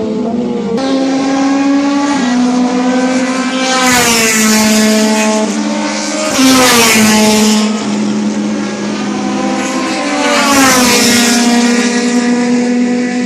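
Turismo Nacional touring race car engines running hard at high revs, the pitch stepping up and down as gears change. The sound swells loudly three times, about four, six and a half, and ten and a half seconds in.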